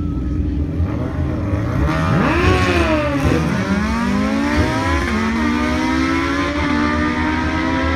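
Two drag-racing sport motorcycles, a Suzuki Hayabusa and a Honda CBR1000, both inline-fours, launching from the start line about a second in. The engines rev hard up through the gears, their pitch climbing and then dropping at each shift as the bikes pull away.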